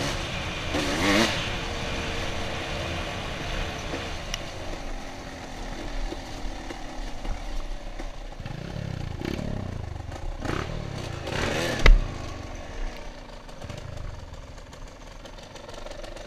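Suzuki RMX 250 two-stroke dirt bike engine revving and running at varying speed, with the rattle of the bike over rough ground. A single sharp knock about three quarters of the way through, and the engine easing off near the end as the bike slows.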